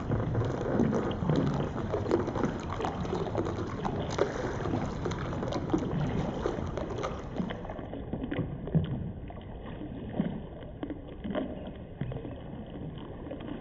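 Water lapping and sloshing around a kayak, with scattered small knocks and splashes. The sound turns more muffled about eight seconds in.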